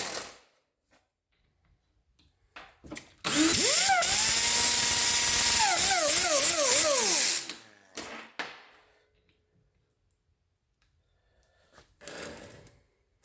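Small electric lathe motor spinning up about three seconds in and running at a steady high whine. Its pitch dips several times as the cutter takes the load of turning down a bolt's edges, then it is switched off and stops at about seven and a half seconds. A few clicks and knocks come before and after the run.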